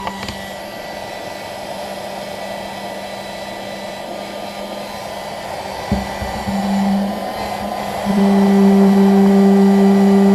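Cigarette-lighter car vacuum cleaner running with a steady motor hum and rushing air. There is a click at the start and a knock about six seconds in, and from about eight seconds it gets louder, with a stronger hum.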